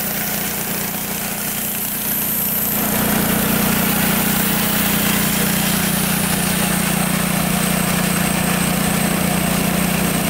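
Kohler Command Pro 15 single-cylinder engine on a Wood-Mizer LT15 bandsaw mill, running steadily at idle. It grows somewhat louder about three seconds in.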